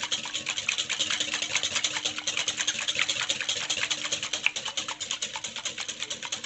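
Wire whisk beating a thin liquid mix of milk, oil, yeast and yogurt in a glass bowl: quick, even strokes, each a small clicking splash, several a second.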